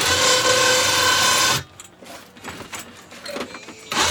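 A small electric motor whirring with a steady whine for about a second and a half, stopping, then starting again near the end.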